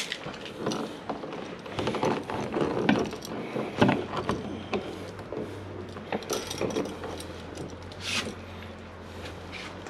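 Irregular clicks, knocks and scrapes of hand work on electrical wiring at a switch box, disconnecting a cable. A low steady hum joins about halfway through.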